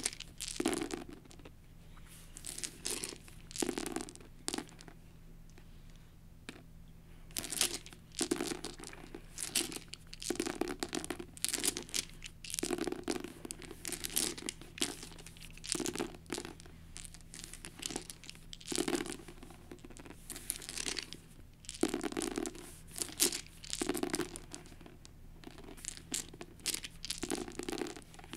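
Eight translucent plastic six-sided dice clattering and clicking against one another in a hand and on a book cover as they are gathered up and rolled, in irregular bursts of rattling throughout.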